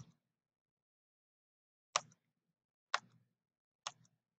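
Computer mouse clicks advancing presentation slides: a sharp click at the start, then three more about a second apart.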